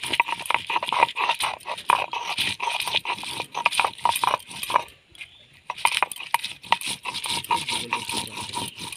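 Stone roller rubbed back and forth on a flat grinding stone, crushing wet dried red chillies to paste: rapid scraping strokes, about three or four a second, with a brief pause about five seconds in.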